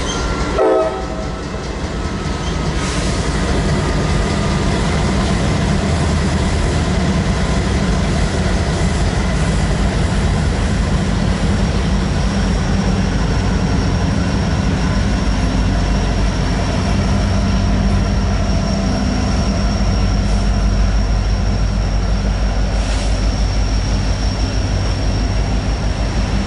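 Norfolk Southern diesel locomotives working across a steel girder bridge, then double-stack intermodal cars rolling over it, a steady heavy rumble. There is a short loud sound just under a second in.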